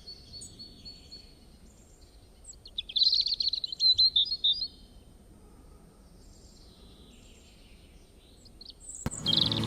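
Birds chirping and singing in high, thin calls, with a loud run of rapid trilled chirps about three seconds in that lasts under two seconds, over a faint steady background. Music with a harmonica comes in just before the end.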